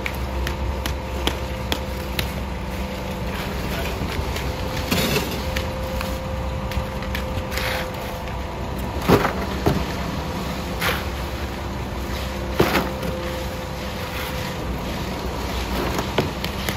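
An engine hums steadily throughout. Over it, a run of light taps about twice a second at first, then several scraping strokes of a steel shovel through wet concrete.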